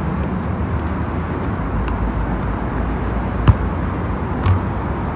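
A football kicked hard, a single sharp thud about three and a half seconds in, then a duller thump about a second later as the ball strikes the wall, over a steady outdoor city rumble.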